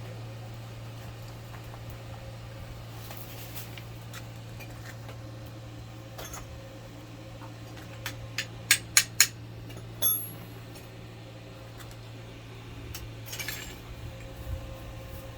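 Steady low hum of a switched-on welding machine at idle, with a quick run of four or five sharp metallic clinks about eight to nine seconds in and one more at ten seconds.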